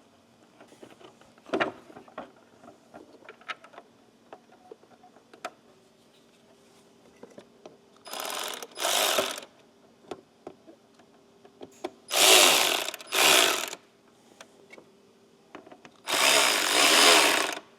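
Power drill-driver running in short bursts, driving in the Torx screws that hold the headlight: two brief runs about eight seconds in, two more around twelve to thirteen seconds, and a longer run near the end. Before the drill, light clicks of parts and screws being handled.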